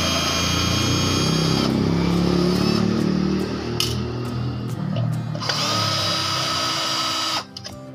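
Cordless drill-driver whining as it backs out screws holding the solar charge controller's circuit board. It runs in two spells, the second starting about two-thirds of the way through and cutting off shortly before the end.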